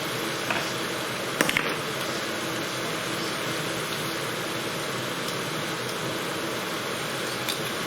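Curry sauce sizzling and simmering steadily in a pan, with a few light clicks of a spoon against the pan as tomato paste is spooned in.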